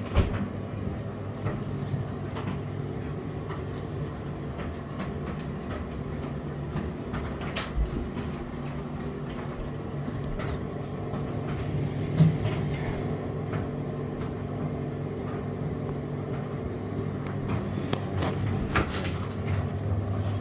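Indesit IDC8T3B condenser tumble dryer running, its motor and turning drum giving a steady hum, with a few short knocks along the way.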